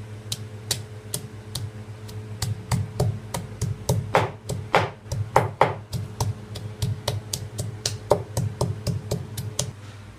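Irregular sharp knocks on a hard surface, about three or four a second, as chillies, garlic, ginger, onion and raw turmeric are broken up for a curry paste. A few heavier strikes come in the middle, and the knocking stops just before the end over a low steady hum.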